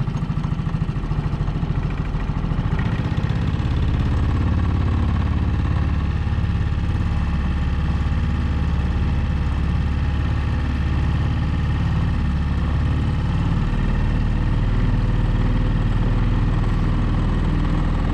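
Small boat outboard motor running steadily as the boat travels, its engine note shifting about thirteen seconds in.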